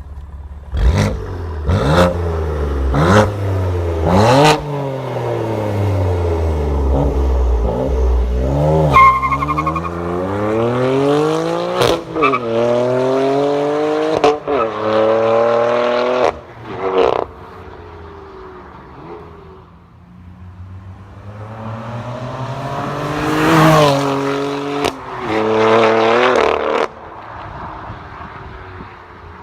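Exhaust of a 2015 BMW M3's twin-turbo inline-six through a non-resonated AWE Switchpath exhaust. It gives four quick sharp revs, then a longer climbing rev. Then come two hard accelerations, the pitch climbing and dropping sharply at each upshift with a crack at the shifts.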